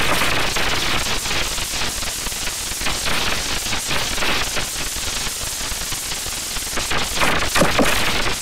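Loud, harshly distorted crackling noise: a dense, fast rattle of clicks and static, with a brief wavering pitched sound about seven seconds in.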